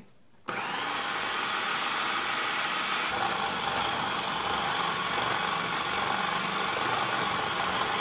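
Cuisinart Elemental food processor's motor switching on about half a second in and running steadily, its chopping blade grinding peanuts into peanut butter.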